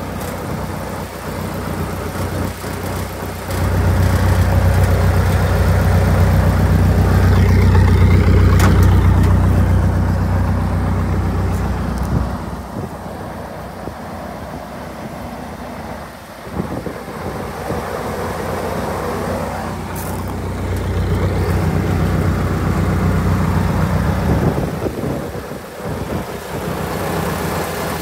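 Continental F163 four-cylinder gasoline engine of a 1975 Lincoln SA-200 welder running steadily. It grows louder a few seconds in, drops back for a while midway, and comes up again later.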